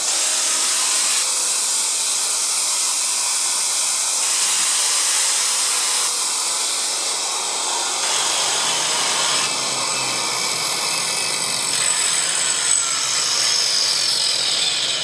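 Hand-held power tool with a diamond-segment cutter disc stripping varnish off wooden floorboards: a steady, hissing grind of the cutter on the wood, which runs without bouncing. Near the end a whine falls in pitch.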